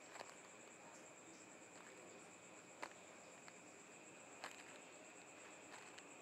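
Faint night ambience of crickets: a steady high trill that runs on without a break, with a few soft clicks.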